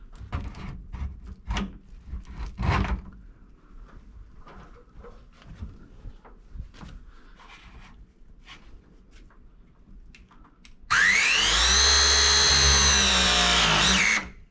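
Battery-powered ProPress tool crimping a copper slip coupling onto pipe. Light clicks and knocks come as the jaw is fitted over the fitting. About eleven seconds in, the press motor starts with a rising whine, runs loud and steady for about three seconds, and cuts off.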